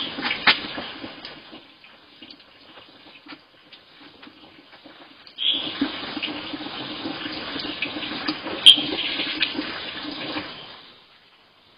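Water from a bucket being poured and splashing onto the ground during an outdoor bath. A splash at the start fades over about two seconds. A few seconds later comes a steady pour of about five seconds, with one sharp tap partway through, and it stops shortly before the end.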